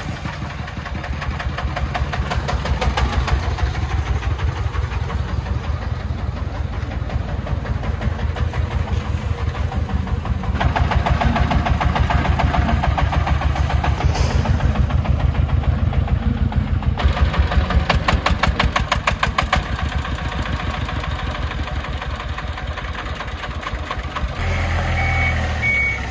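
Diesel engine of a three-wheeled công nông farm truck running with a fast, even chug, getting louder about ten seconds in. Near the end it gives way to another engine and a repeating high reversing beep from a forklift.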